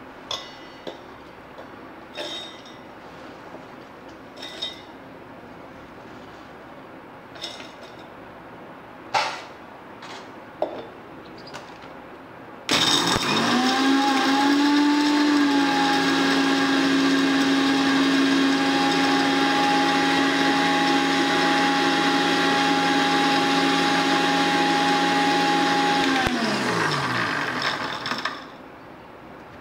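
Pieces of Marie biscuit clinking into a stainless-steel mixer-grinder jar, then the mixer grinder's motor starts about halfway through, runs up to speed and runs steadily for about thirteen seconds, grinding the dry biscuits to powder, before being switched off and winding down.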